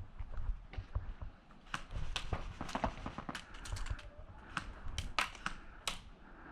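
Airsoft guns firing: an irregular series of sharp cracks and clicks in short clusters, starting a couple of seconds in and ending shortly before the close.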